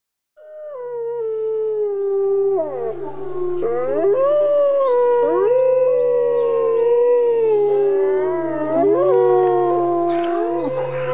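A wolf pack howling in chorus: several long, overlapping howls that rise and fall in pitch, starting after a brief silence, over a low steady hum.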